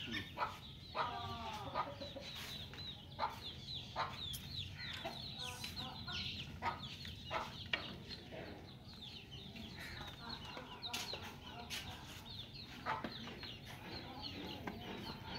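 Domestic chicks peeping in many quick, high, falling chirps, with a hen clucking among them; scattered sharp knocks are mixed in.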